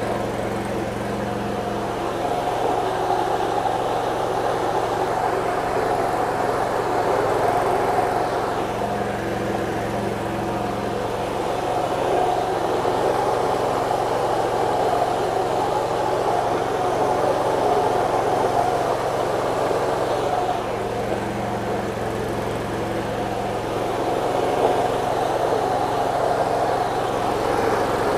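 Motor-driven stone spice grinder running steadily while grinding shallots and garlic: a continuous hum with the rasp of the stones, swelling a little in level every ten seconds or so.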